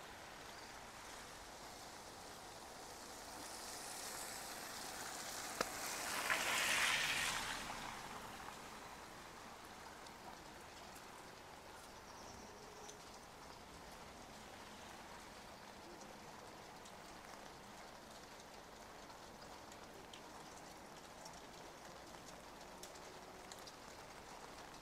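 Steady light rain on wet pavement and puddles, with faint scattered drips. About four seconds in, a louder hiss swells up, peaks a few seconds later and fades, with one sharp click just before the peak.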